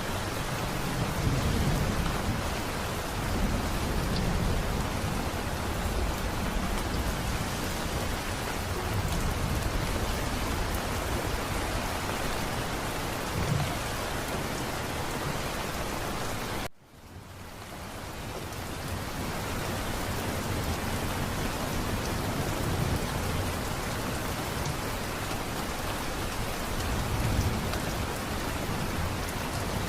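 Steady heavy rain with low rumbles of thunder rolling in and out. About halfway through, the sound cuts out abruptly for a moment and fades back in.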